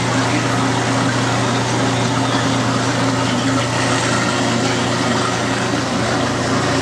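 Sodick FS-A3B CNC sinker EDM burning, its electrode sparking under the dielectric fluid in the work tank: a steady electrical hum under a dense, even hiss.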